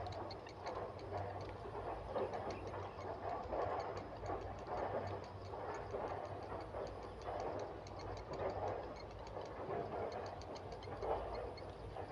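Grey heron nestlings calling at the nest: a rapid, even ticking at several ticks a second, with a steady low hum underneath.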